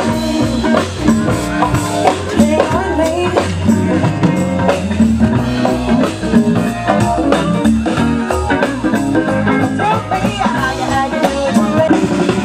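Live band music: a singer over guitar and drum kit, playing a rock-blues song.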